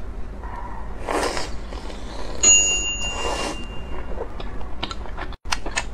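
Close-miked eating of a spicy crayfish skewer: two short sucking slurps as the meat is pulled off. A bell-like ding sounds about two and a half seconds in, then a run of quick crisp clicks from chewing.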